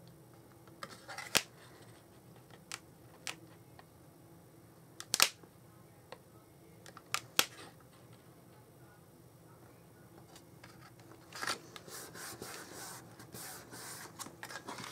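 Cardstock being handled and pressed down on a craft desk: a few faint, sharp taps and clicks, then, about eleven seconds in, a longer stretch of paper rustling and rubbing.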